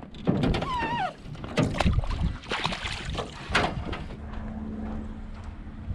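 Water splashing and knocking against the side of a small boat as a rainbow trout is released back into the lake, in a run of sharp, uneven splashes. A short squeal falling in pitch comes about half a second in, and a steady low hum takes over after about four seconds.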